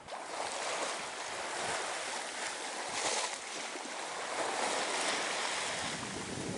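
Steady rushing hiss of sea water streaming along the hull of a sailboat making way under sail, with some wind.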